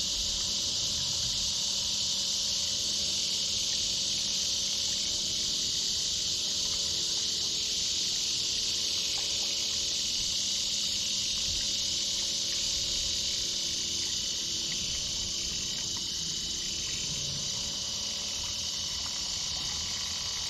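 Fuel being drained from a Honda Helix scooter's tank into a jug: a steady hiss that does not change.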